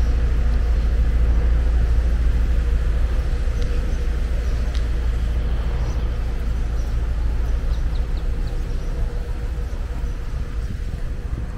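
Steady outdoor ambience dominated by a deep, fluttering low rumble of wind on the microphone, with a few faint, short high chirps.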